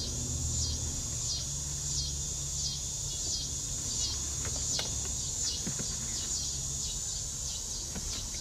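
A high chirping call repeating steadily, nearly two a second, each chirp sliding down in pitch, over a steady low hum, with a few faint clicks.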